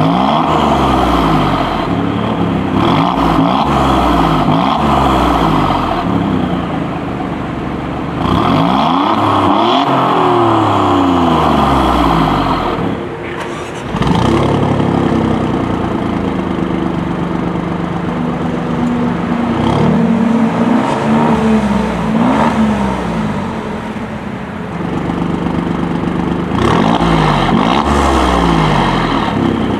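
Alfa Romeo Giulia Quadrifoglio's twin-turbo V6 revved repeatedly while standing, heard at the exhaust: quick throttle blips and longer revs rising and falling, with stretches of idle between them.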